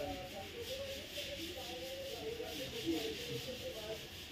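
Air hissing steadily out of an Omron SEM-1 automatic blood pressure monitor's cuff through its release valve as the cuff pressure falls during a measurement.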